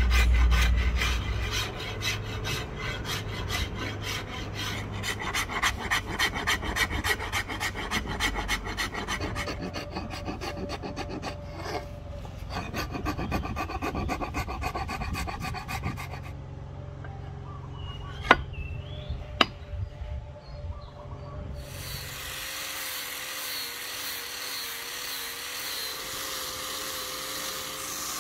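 Steel rasp filing a rosewood axe handle in quick repeated strokes, with sharp taps twice past the middle. Near the end an angle grinder with a sanding disc starts running with a steady hiss.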